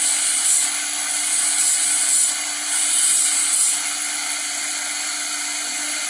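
Small motor-driven grinding wheel sharpening the teeth of a steel bandsaw blade. A steady hum runs under a higher grinding sound, which swells three times in the first four seconds as the blade is worked against the wheel, then runs evenly.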